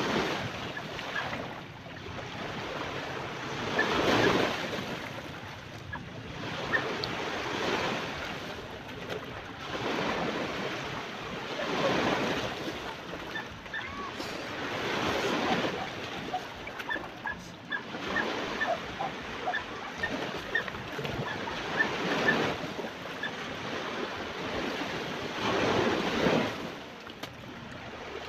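Sea waves washing in: a rushing hiss that swells and fades roughly every three to four seconds as each wave breaks.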